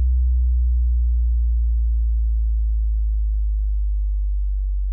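Deep sub-bass tone from a DJ remix track, held steadily with no beat and slowly fading.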